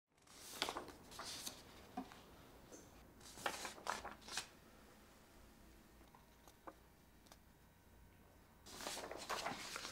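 Sheets of paper rustling as a document is handled and its pages turned, in three short spells, the last near the end; quiet.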